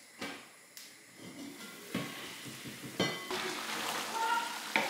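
A few light clicks, then about three seconds in a sharp clink of a spoon against a heavy enamelled pot, followed by the steady noise of chunks of meat being stirred in it.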